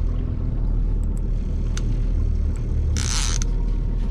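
Boat motor running steadily, a low drone, with a short hiss about three seconds in.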